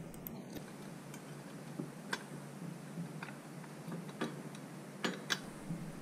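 Light, irregular metallic clicks and ticks of small nuts, bolts and a bracket being handled and fitted by hand on a bicycle chain tensioner.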